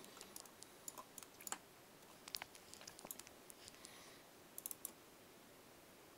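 Faint, scattered clicks of a computer mouse and keyboard, with a quick run of about four clicks about two-thirds of the way through.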